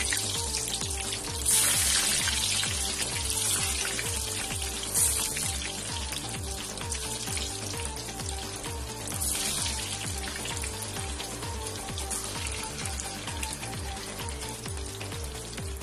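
Par-boiled potato fries deep-frying in hot oil in a karahi: a dense sizzling hiss that surges loudest about a second and a half in, and again a few seconds later, then settles to a steadier sizzle. Background music with a steady beat plays underneath.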